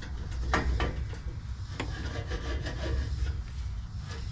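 Cherry Bomb glass-pack muffler being forced and twisted onto a steel exhaust pipe: metal scraping and rubbing, with a few sharp knocks in the first two seconds.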